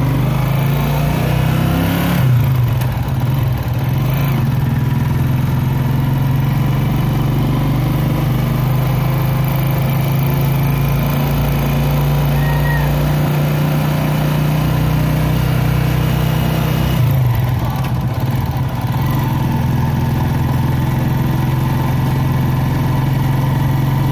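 A motorcycle tricycle's engine running steadily under way. Its note changes pitch about two seconds in and again near seventeen seconds.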